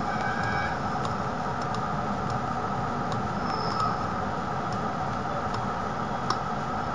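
A few faint computer mouse clicks, scattered and irregular, over a steady background hiss.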